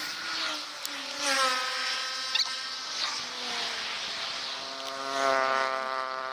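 Motor vehicles passing close by on the road, each engine's buzz dropping in pitch as it goes past, over a haze of road and wind noise. A short sharp click comes about two and a half seconds in.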